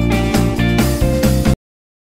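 Background music with guitar and a steady beat, cutting off abruptly about one and a half seconds in, then dead silence.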